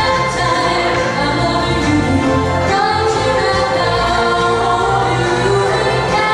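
Live band music: a woman singing lead over electric bass and keyboards.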